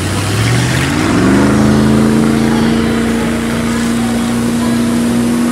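An engine-like hum rises in pitch over the first second or so, holds steady, and cuts off abruptly near the end, over a steady rolling rattle such as plastic ride-on toy wheels make on a hard floor.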